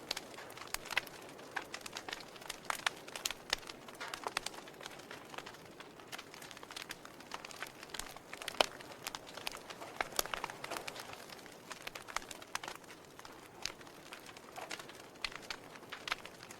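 Wood fire in a fireplace crackling: irregular sharp pops and snaps over a soft steady hiss of burning, the loudest pop about eight and a half seconds in.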